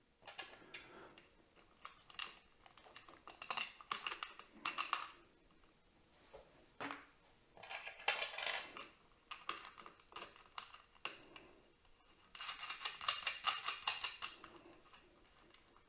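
Small metal clicks and rattles of a washer and M6 nut being fitted and run down onto a LiFePO4 cell's positive terminal stud to fasten a red cable lug. They come in several short runs of quick clicks, the longest and densest lasting about two seconds near the end.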